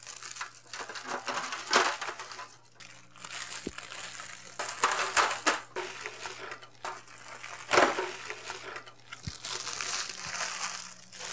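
Plastic packaging of savoiardi ladyfinger biscuits crinkling in irregular bursts as the packets are opened and emptied.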